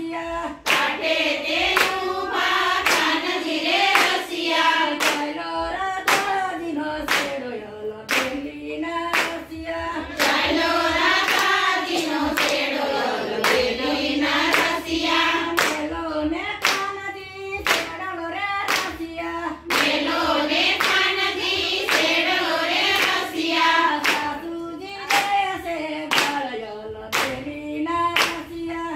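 A group of women singing a Gujarati Krishna bhajan together, clapping their hands in a steady beat of about one to two claps a second.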